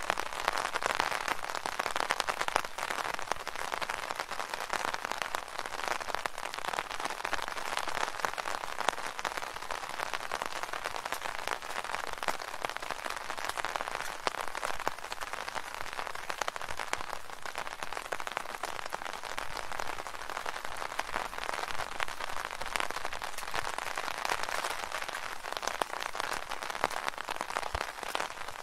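Rain drumming on an open umbrella overhead: a dense, steady patter of countless small drops on the taut canopy.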